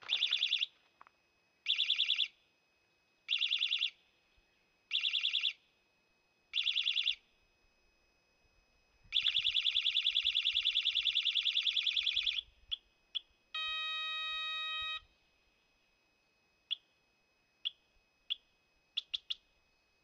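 Vibration-activated bicycle anti-theft alarm sounding: five short, piercing, rapidly warbling high-pitched bursts about a second and a half apart, then one longer burst of about three seconds. After it come two short chirps, a steady lower beep of about a second and a half, and a few short beeps near the end.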